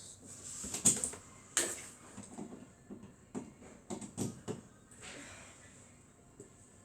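Handling clicks and knocks as a smartphone and its charging cable are worked by hand: a sharp click about a second in, another just after, then a run of softer taps.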